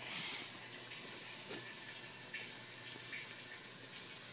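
A cat eating from its food bowl: a few faint, soft clicks of chewing over a steady background hiss.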